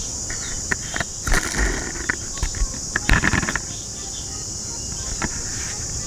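A red plastic toy fire truck handled in the hands: a scatter of small plastic clicks and knocks, busiest about three seconds in. Under it, a steady high buzz of insects.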